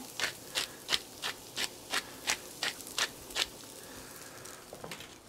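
Wooden pepper mill being twisted to grind pepper, about ten crunching grinding strokes at roughly three a second. It stops about three and a half seconds in.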